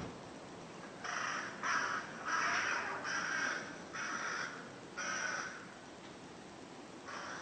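Crow cawing: a run of six harsh caws, each about half a second long, then one more caw near the end.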